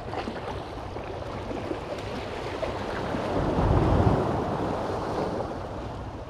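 Small sea waves washing against shoreline rocks, with wind rumbling on the microphone. The sound swells to its loudest a little past halfway, then eases off.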